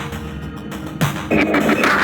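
Electronic music with a deep kick drum hitting about once a second. A fuller, brighter layer comes in just past halfway.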